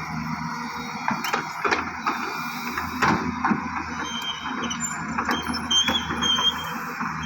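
Komatsu PC200 hydraulic excavator working: the diesel engine runs steadily under scattered metallic clanks, with short high-pitched squeals in the second half.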